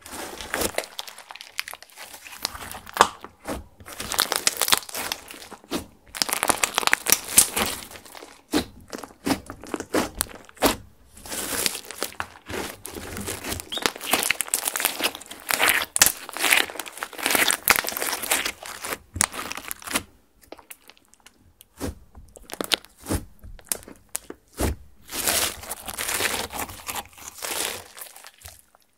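Hands squeezing, folding and pressing thick burgundy makeup slime, making sticky crackling pops and squishes. The sound comes in bursts with brief pauses and stops just before the end.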